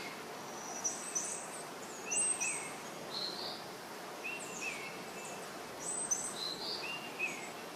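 Birds chirping now and then in short, high calls over a steady background hiss.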